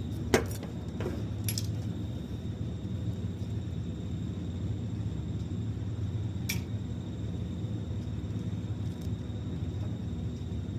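A few sharp metallic clicks and taps of compressor parts and tools being handled, a cluster in the first second and a half and one more about six and a half seconds in, over a steady low hum.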